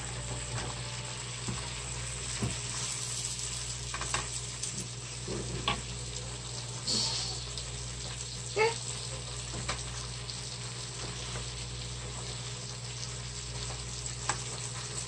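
Baby spinach sizzling in a hot skillet as it is tossed with tongs and a chopstick, with scattered light clicks of the utensils against the pan and one sharper clink a little past halfway. A steady low hum sits underneath.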